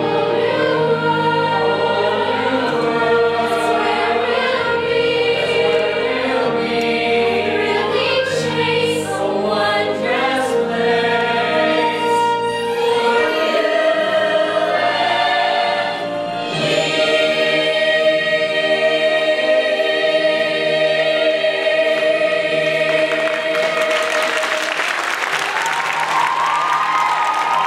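Youth ensemble singing a musical-theatre number in chorus with musical accompaniment, ending on a long held note. Applause breaks out near the end.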